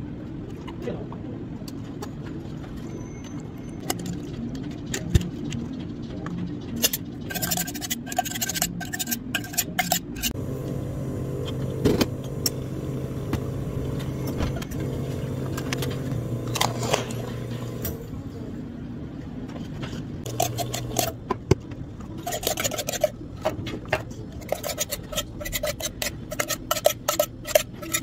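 Drink-making at a cafe counter: ice cubes clattering and clinking into plastic cups in quick bursts, with a steady electric machine hum lasting several seconds in the middle.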